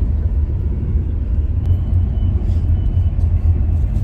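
Steady low rumble of a moving road vehicle, as heard from inside it.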